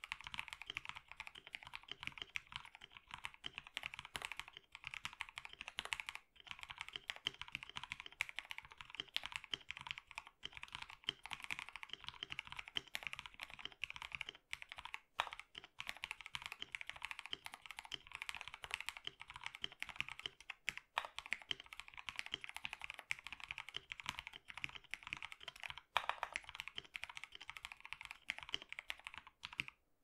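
Steady, fast typing on a mechanical keyboard fitted with lubed Cherry MX Black linear switches and ASA profile keycaps. It is a continuous stream of key clacks with only a brief break or two.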